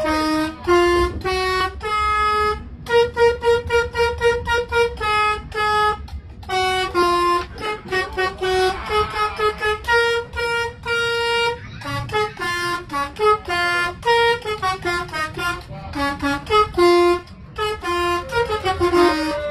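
Bus telolet multi-tone air horn played from a keyboard as a melody: a rapid run of distinct horn notes, some short and some held for about a second, at changing pitches, over a low rumble.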